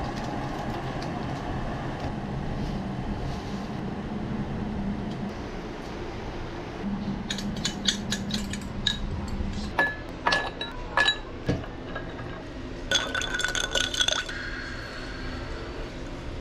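A metal spoon stirring in a drinking glass, clinking against its sides: scattered separate clinks, then a quick run of rapid clinks about three-quarters of the way through.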